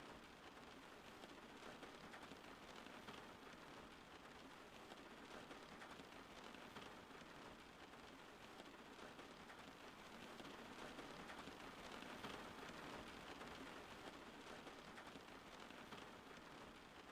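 Steady rain falling, a soft continuous hiss that swells a little past the middle.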